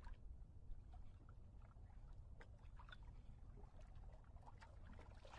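Near silence at the water's edge: small ripples lapping faintly, with scattered soft splashes and clicks over a low rumble.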